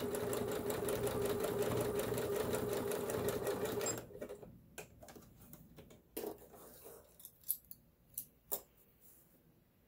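Kenmore 385.19606 computerized sewing machine running steadily, its needle making rapid, even strokes as it sews a decorative stitch, then stopping about four seconds in. After that, only a few faint clicks.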